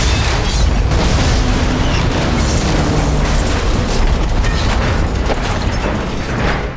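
Truck bomb explosion: a heavy blast followed by a deep, sustained rumble of the fireball, cutting off suddenly at the end.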